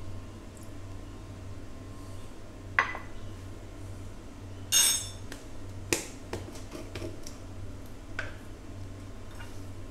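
Kitchenware being handled on a stone countertop: a sharp knock, then a ringing clink about five seconds in, followed by a few lighter clicks and taps.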